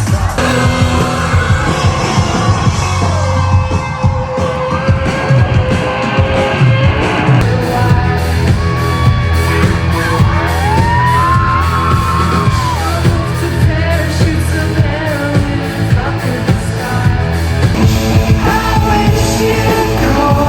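Live pop-rock band playing loudly with a steady bass beat, with singing and yells from the crowd over it.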